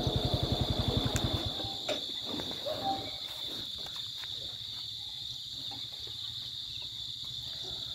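Crickets chirring steadily in one high, unbroken band. For the first second and a half a vehicle engine idles underneath with a rapid, even low putter, then stops.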